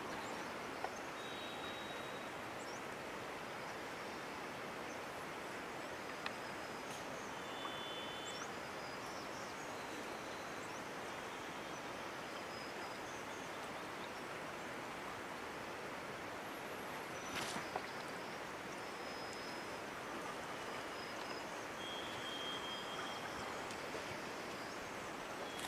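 Outdoor ambience: a steady even hiss with scattered short, high-pitched chirps and a brief rustle about two-thirds of the way through.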